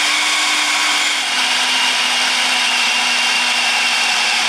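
Food processor motor running steadily at full speed, its blade churning a flour, butter, sour cream and egg pastry dough until the dough begins to mass on the blade.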